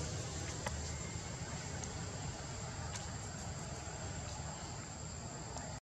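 Steady outdoor ambience: a low, even rumble under a continuous high-pitched insect drone, with a few faint clicks.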